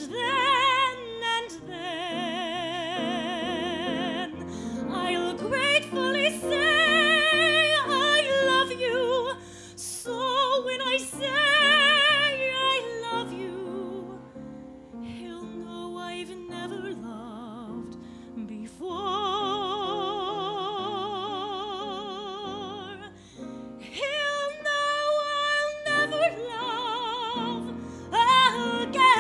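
Soprano voice singing a ballad with strong vibrato on long held notes, to piano accompaniment; the phrases are separated by short breaths.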